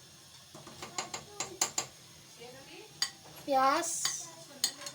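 Kitchen utensils clinking against a cooking pot as ingredients are added and stirred. There is a quick series of sharp clinks about a second in, one more at about three seconds and two near the end.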